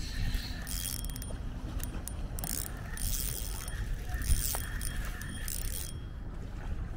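Spinning fishing reel being cranked in quick spurts with a whirring, clicking sound while a hooked walleye is reeled in, over a low rumble.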